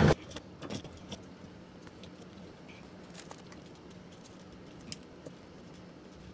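Scattered faint clicks and light rattles of plastic fuel-pump parts and fittings being handled, with one sharper click about five seconds in.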